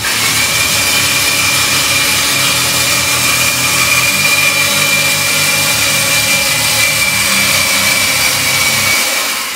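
Electric winch motor running steadily under load with a high whine over a hiss, paying out cable as a homemade scissor lift lowers with a man standing on it.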